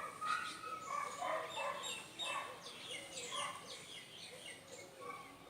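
Birds chirping outdoors: many short, quick calls overlapping, busiest in the first three seconds and thinning out toward the end.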